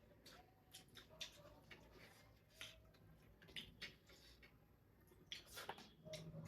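Near silence with faint, scattered clicks and ticks of eating: quiet chewing and mouth sounds.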